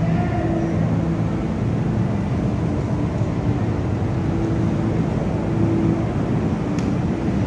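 Steady low rumble of road traffic, with faint engine tones coming and going. A single faint click near the end.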